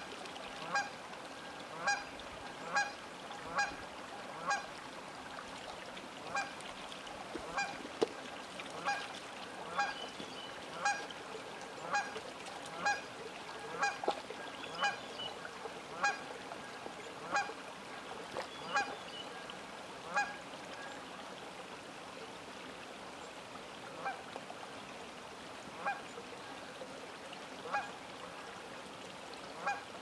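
Canada geese honking: a long series of short, repeated honks, about one a second at first and fewer and more spaced out near the end, over a steady background hiss.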